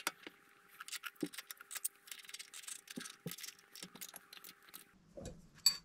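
Rapid light metallic clicks and ticks as a steel toolpost mount block is seated on a lathe cross slide and its M8 cap head screws are turned into the T-nuts with a hex key. There are a few dull knocks among them and a sharper click near the end.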